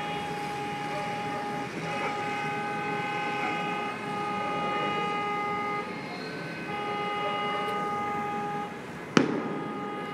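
Long vehicle horn blasts over street traffic noise, several steady notes sounding together, held for a couple of seconds at a time and repeated with short breaks. A single sharp bang about nine seconds in.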